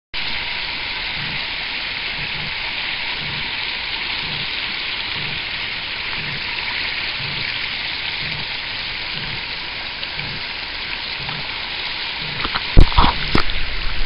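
Shallow stream water rushing and trickling over rocks, a steady splashing hiss. Near the end come two sharp knocks.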